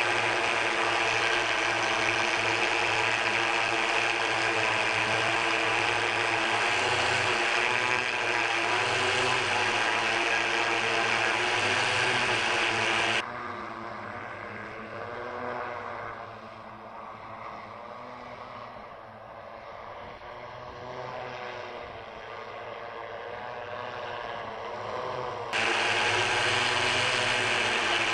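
Jetson One electric multirotor's eight brushless motors and propellers running in flight, heard close up as a loud steady hum with many tones. About 13 seconds in it drops to a quieter, duller hum heard from afar whose pitch wavers as the craft manoeuvres, and the loud close hum returns near the end.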